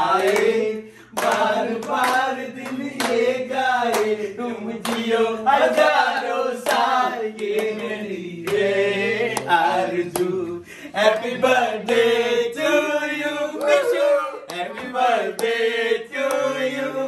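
A group of people singing together while clapping their hands in time, as a cake is cut.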